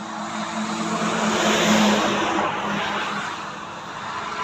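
Airbus A400M's four turboprop engines droning overhead in a low pass: a steady propeller hum under a rushing noise that swells to its loudest about two seconds in and then eases off.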